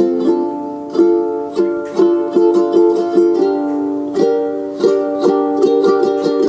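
Background music: a light plucked-string tune, ukulele-like, with notes picked in a steady rhythm.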